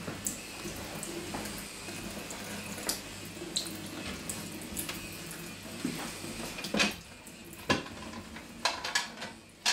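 Thin stream of tap water trickling into a stainless-steel kitchen sink while a cat paws and licks at it. Several sharp clinking taps come in the last three seconds and are the loudest sounds.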